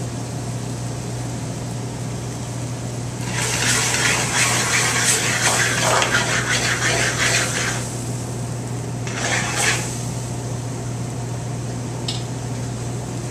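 Pan of vegetables in wine and stock sizzling hard over a gas burner as it flares up, a loud crackling hiss lasting about four seconds from a few seconds in, with a second, shorter sizzle near ten seconds. A steady low hum runs underneath.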